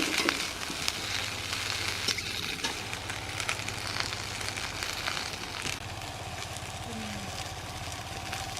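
Food frying in hot oil in a pan: a steady sizzle full of small crackles, with stirring. The sizzle eases a little after about six seconds.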